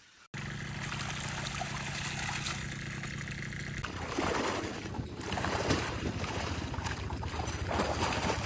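Shallow water splashing and trickling, with a steady low hum under it for the first few seconds, then several louder surges of splashing.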